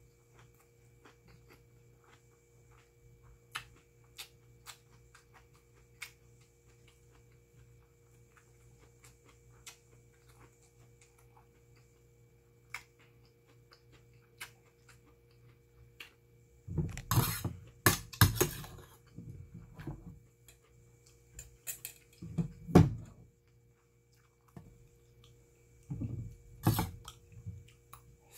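Mouth-closed chewing of rice with faint wet clicks. Past the middle, a metal spoon scrapes and clinks in a stainless steel bowl in several loud, irregular bouts as rice is scooped up and eaten.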